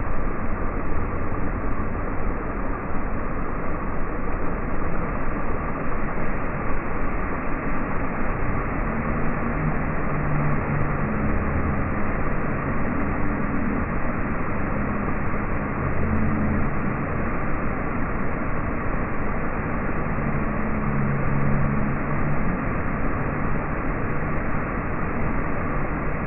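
Steady rush of water pouring and splashing down from a giant tipping bucket onto a water-park play structure. The audio is slowed down in slow motion, so it sounds deep and dull.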